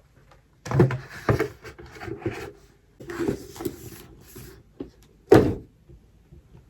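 Irregular rustling and knocking, like objects being handled in a small room, with one loud knock about five and a half seconds in.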